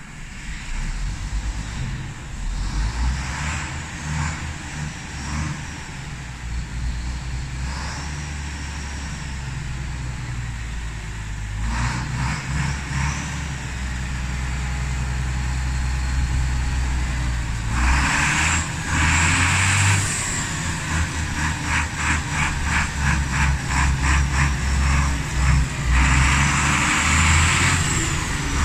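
International 1255 tractor's diesel engine running through a straight-pipe exhaust as the tractor pulls out. It gets louder as it goes, with the revs rising two or three times in the second half.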